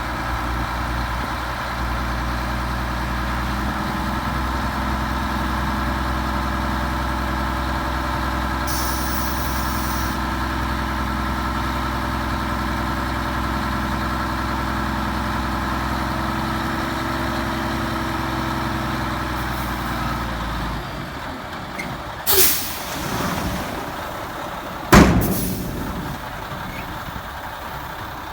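Heavy diesel dump truck idling steadily, with a short high air hiss partway through. About three quarters in the engine sound drops away, followed by two sharp bursts of air-brake hiss, the second the loudest.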